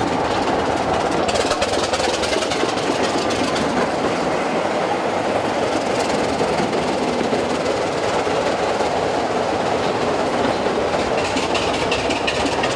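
BR Class 25 diesel locomotive running as it moves slowly past along the platform, its Sulzer six-cylinder diesel engine giving a steady drone.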